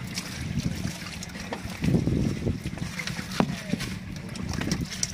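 Small fish being scooped by hand with a plastic bowl out of a plastic fish box, with scattered knocks and wet slaps, over a steady low boat-engine hum.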